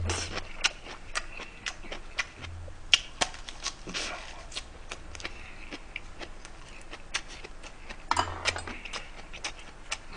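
Close-miked chewing of a mouthful of food: an irregular run of small wet mouth clicks and smacks, several a second.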